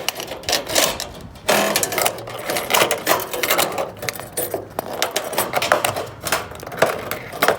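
Rapid, irregular metallic clicking and rattling from a metal gutter guard panel being handled and worked into place.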